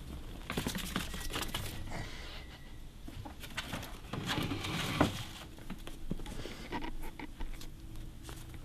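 Pet ferret scrabbling and rustling about, with irregular light pattering and scratching clicks and one sharper knock about five seconds in.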